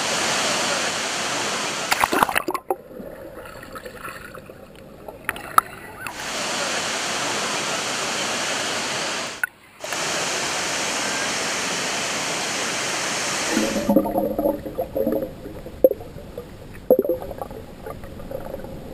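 Steady rushing of the Skradinski buk waterfalls on the Krka River, heard at the water's surface. Twice, about two and a half seconds in and again near the end, the sound goes under water: the rush turns muffled, with low gurgling and a few sharp knocks.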